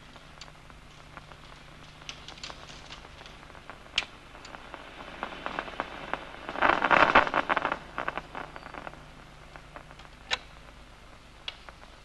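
Locust DCMD neuron's action potentials heard through an amplifier's audio monitor: scattered single clicks, then about halfway through a dense burst of crackling clicks lasting roughly a second and a half, the neuron firing as the 10-degree target spot crosses the locust's field of view. A low steady hum runs underneath.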